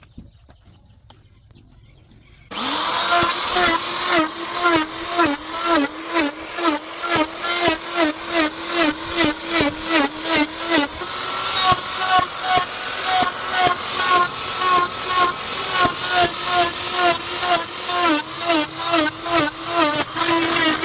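Electric power tool starting up about two and a half seconds in and running under load on wood. Its motor hum dips in pitch about twice a second, as if bogging with each push or stroke.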